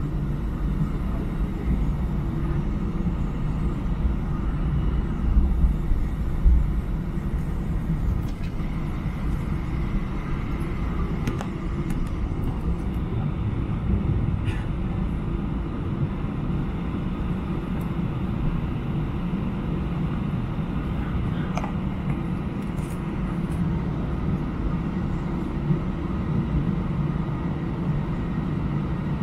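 Inside the cabin of an Airbus A320-214 on its takeoff roll: the CFM56 engines running steadily at high power under a continuous rumble of the wheels on the runway. A few louder bumps come about five to six seconds in, and short knocks and rattles are heard now and then.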